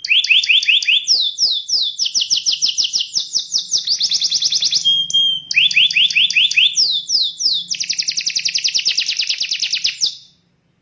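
Domestic canary singing a fast, rhythmic song: rapid runs of evenly repeated notes, some sweeping downward, with a short held whistle midway. The song stops abruptly near the end.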